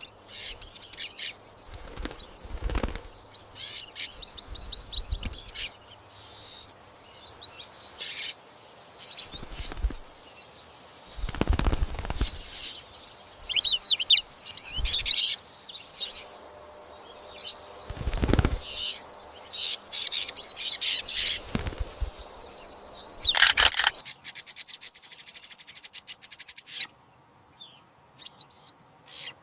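Goldfinch chirping in quick, high twittering phrases again and again, broken by several short dull thumps. Near the end a rapid buzzy trill lasts about three seconds.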